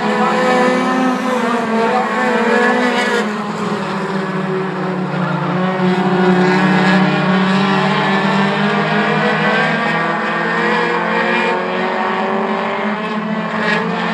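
A pack of four-cylinder short-track race cars running on the track together, their engines overlapping in a steady drone that swells and eases slightly as they circulate.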